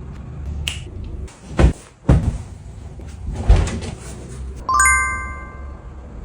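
Household cleaning-up sounds: a few knocks and thumps of things being handled and set down, then a bright ringing clink near the end of the first five seconds that fades over about a second.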